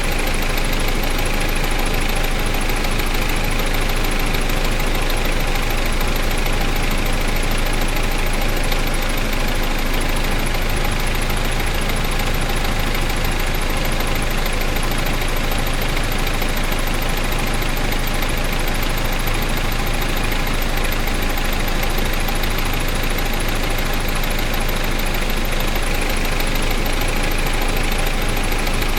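Car engine running steadily at a constant speed, as at idle, with no revving.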